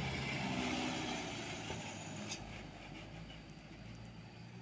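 Mitsubishi Canter dump truck's diesel engine running as the truck drives past and away, its hum fading over the first couple of seconds to a faint drone. There is a short click about halfway through.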